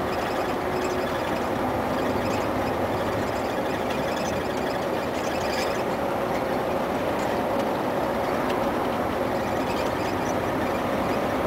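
Cab interior of a Mercedes-Benz Actros 1848 truck cruising: its V6 diesel engine running steadily under tyre and road noise, with occasional light rattles.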